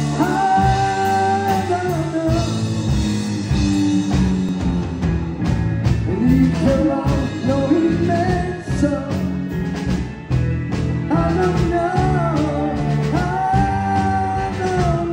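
Live rock band playing: a woman sings the lead melody over her red SG-style electric bass, with electric guitar and a drum kit.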